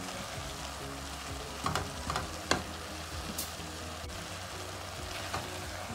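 Minced beef with chopped vegetables and tomato sizzling in a non-stick frying pan while a silicone spatula stirs it, with a few short scrapes and taps of the spatula against the pan around two seconds in.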